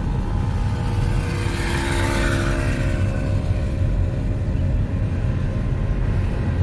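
Volkswagen car's engine and road rumble heard from inside the cabin while driving slowly in town traffic: a steady low drone, with a faint engine hum that rises and fades in the middle.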